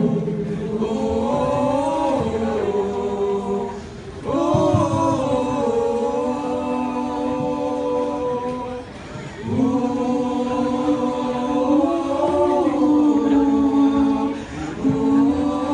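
A group of voices chanting in unison, singing long held, slowly gliding phrases that pause briefly about every five seconds.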